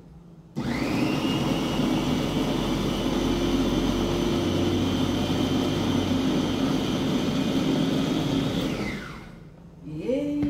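Electric food chopper with a stainless steel bowl running, chopping bell pepper. It spins up quickly about half a second in, runs steadily for about eight seconds, then winds down with a falling whine.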